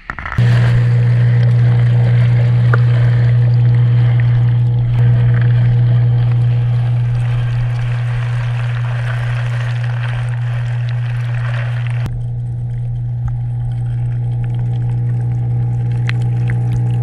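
Submersible aquarium power-head pump humming steadily and low, with water bubbling and rushing over the hum. The water noise falls away about twelve seconds in, leaving mostly the hum.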